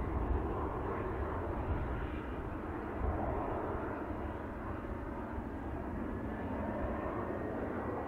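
Jet engines of a Boeing 767 airliner running at taxi power as it rolls slowly: a steady jet hum with a faint whine that rises slightly in the second half, over uneven wind rumble on the microphone.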